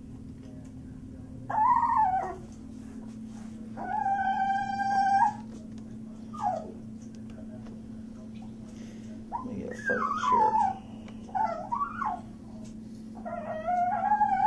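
Wet Chihuahua puppy in a bathtub whining and howling, unhappy at being bathed. There is a string of high whines, with one long held howl about four seconds in, a cluster of short falling whines around ten seconds, and another long whine near the end. A steady low hum runs underneath.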